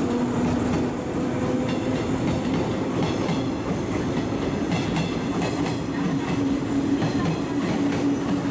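JR 115-series electric train pulling out, its motor hum slowly rising in pitch as it gathers speed, with wheels clacking over rail joints.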